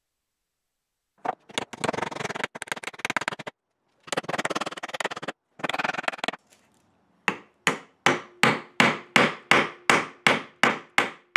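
A hammer striking a wooden draw-bore peg, driving it down through a glued mortise-and-tenon joint. Three stretches of dense, rapid clatter come first, then from about seven seconds in there are steady single blows, about three a second, each ringing briefly.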